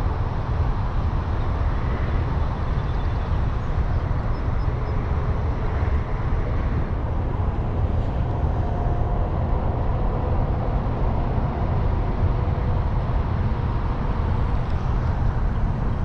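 A steady low rumble of outdoor noise, with no clear individual sounds in it.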